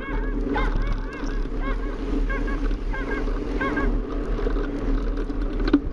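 Small dog yapping over and over, about three short, hoarse yaps a second.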